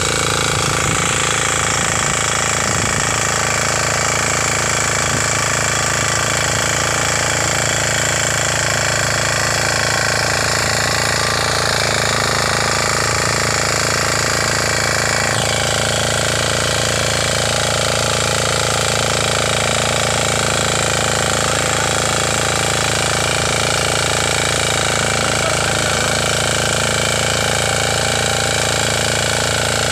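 Back rotary power tiller's small engine running steadily at working speed as its rear rotary tines churn through the soil, a fast, even hammering drone with no break.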